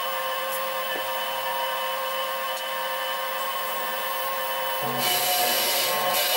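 Sieg SC3 mini lathe running, with a parting tool cutting into the spinning metal stock: a steady motor whine and cutting hiss. About five seconds in the cutting hiss grows harsher and slightly louder.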